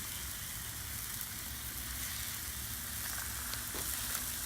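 Jarlsberg cheese frying on a hot flat-top griddle: a steady sizzle, with a few faint crackles in the second half.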